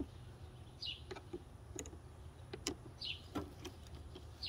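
Faint, irregular light clicks and ticks of a hand tool tightening the clamp on a K&N air filter, with short high chirps that fall in pitch every second or two.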